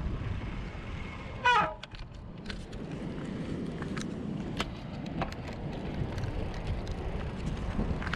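Wind buffeting the microphone of a moving bicycle over a steady low road rumble. About a second and a half in, a short, loud pitched sound that drops slightly in pitch; after it the wind eases and scattered light clicks and ticks come through.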